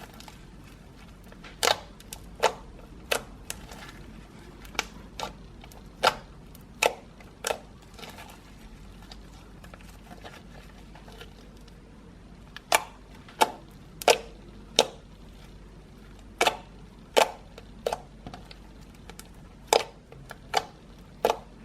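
Homemade slime being handled and squeezed, giving sharp clicking pops in irregular runs of two to four, about twenty in all.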